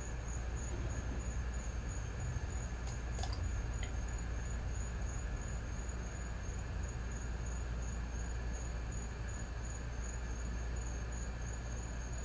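A steady, high-pitched insect trill, finely pulsing, over a low steady hum, with a faint click about three seconds in.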